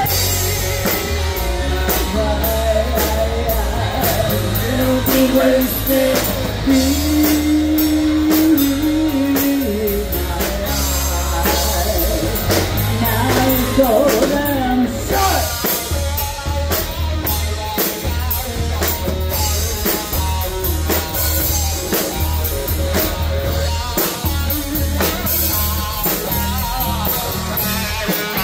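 Live rock band playing electric guitars, bass guitar and a drum kit, with singing over it in the first half.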